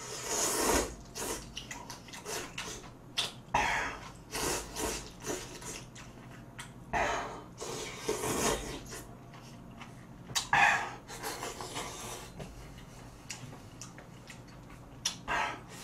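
Loud wet slurping of noodles and spicy stew broth. There are five long slurps, spaced a few seconds apart, with quieter chewing and smaller noises between them.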